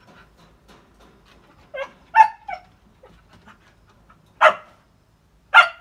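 A dog barking: three short yelping barks in quick succession about two seconds in, then two single loud barks about a second apart near the end.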